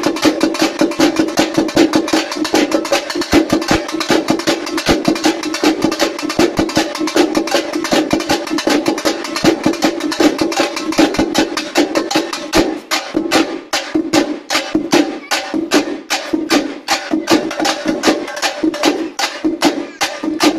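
An ensemble of tappeta (dappu) frame drums beaten with thin sticks in a fast, dense rhythm of sharp strokes over a steady ring from the drumheads. The strokes space out briefly a little past halfway, then tighten again.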